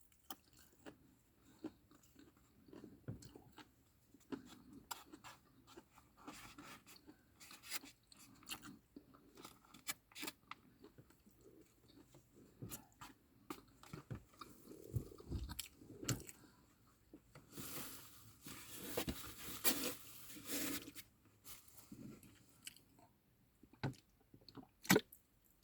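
Close-up eating sounds: a person chewing and crunching food with the mouth near the microphone, in irregular small crunches and wet chews, with a denser run of crunching a little past the middle.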